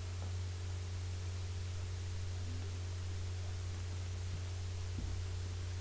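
Steady hiss and low hum of a poor-quality recording microphone's white noise, with a faint knock about five seconds in.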